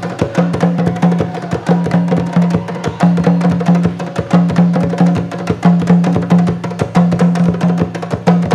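Percussion ensemble of hand drums, including a rope-tuned hand drum, playing a fast, driving rhythm of dense sharp strokes over a repeating low drum note.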